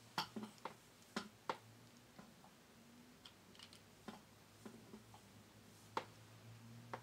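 Scattered light clicks and taps from a curling iron being handled as a strand of hair is wound onto its barrel, a few sharper ones near the start and one about six seconds in, over a faint steady low hum.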